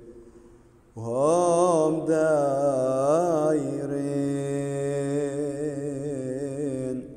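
Male liturgical chanting in a slow, winding melody, of the Syriac Orthodox kind. It starts about a second in after a brief pause and breaks off near the end.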